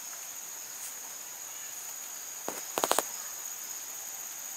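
Steady high-pitched insect chorus. About halfway through, one sharp click and then a quick run of about four more clicks.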